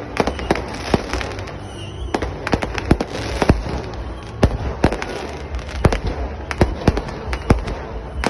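New Year fireworks going off in sharp, irregular bangs, about two a second, over continuous background noise.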